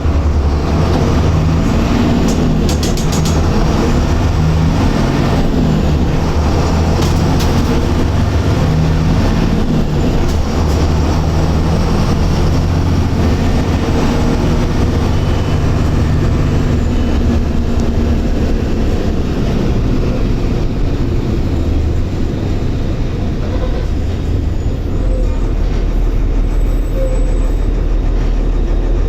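Mercedes-Benz OF-1721 bus's front-mounted diesel engine running under way, its pitch stepping up and down as it pulls through the gears, with a few sharp rattles about two and seven seconds in. Near the end it settles to a low, steady idle.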